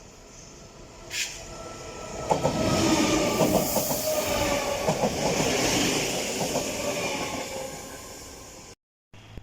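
A train passing close by: its wheels clatter over the rail joints in a rapid run of clicks, over a faint whine that falls slightly in pitch as it goes by. The sound cuts off abruptly near the end.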